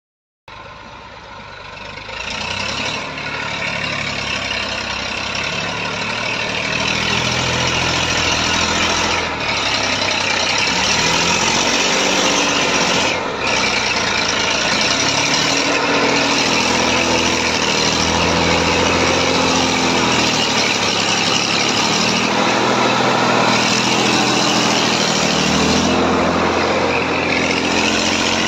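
Tractor engine running under load as the tractor pushes sand with a rear blade. It grows louder over the first few seconds as the tractor comes near, and its pitch rises and falls with the load.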